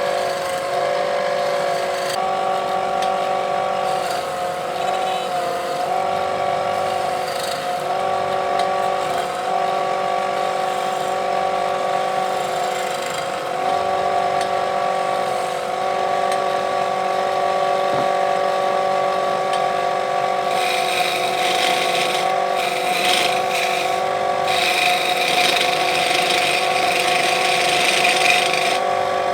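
Wood lathe motor running with a steady hum that dips slightly in pitch now and then. From about two-thirds of the way through, a turning tool cuts the spinning wood with a scratchy hiss in uneven bursts.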